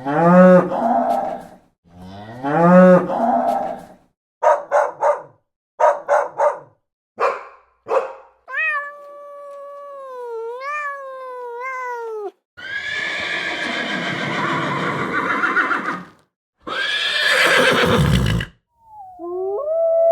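A series of different animal calls one after another, opening with two long cow moos. Then come short calls in quick groups of two or three, a long wavering higher-pitched call, and two loud rough calls.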